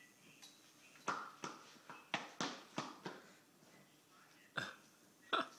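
A toddler's steps in oversized adult running shoes on a tile floor: a quick run of about seven knocks over two seconds, then two more near the end.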